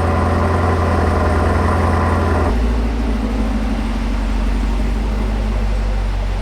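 A car engine idling high just after being started, then dropping abruptly to a lower, steady idle about two and a half seconds in.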